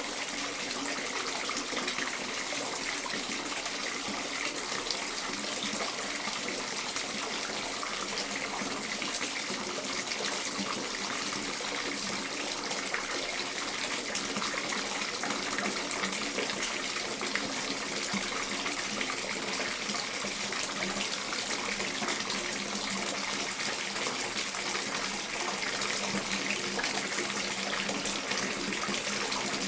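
Bathtub filling from a running tap: a steady, unbroken gush of water pouring into the tub.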